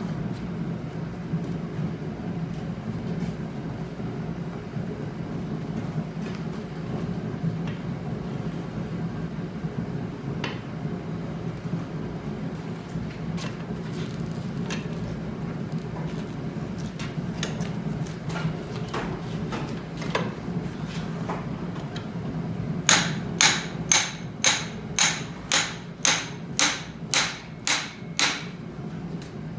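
Hand-hammer blows on red-hot steel clamped in a post vise: a quick run of about a dozen ringing metallic strikes, a little over two a second, starting a few seconds before the end. Before them come scattered lighter knocks of steel being handled in the vise, over a steady low drone.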